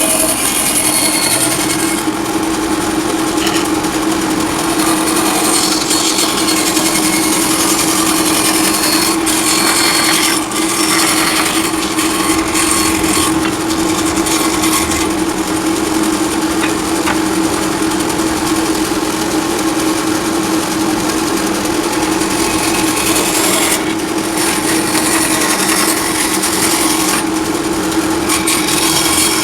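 Wood lathe running with a steady hum while a turning tool cuts and scrapes the spinning wood.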